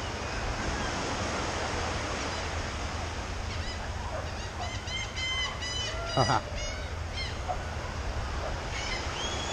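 Birds calling in a quick run of short, honking notes in the middle, with one loud falling call among them and a few more notes near the end, over a steady wash of surf and wind.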